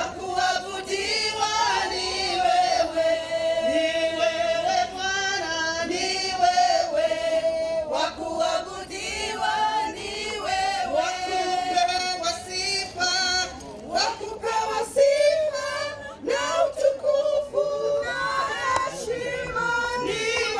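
A group of voices, mostly women, singing together in held, gliding notes.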